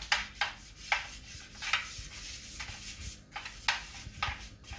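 A wad of paper towel wiping oil across a dark speckled baking pan, greasing it in quick, repeated rubbing strokes of about two a second.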